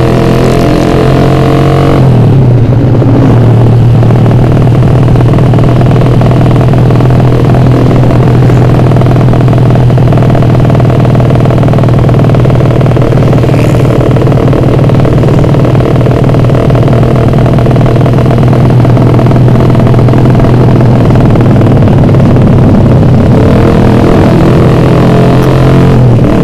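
Suzuki Satria F150's ported single-cylinder four-stroke engine running loudly through a roadrace exhaust while riding at steady speed. Its pitch drops a little about two seconds in and rises again near the end.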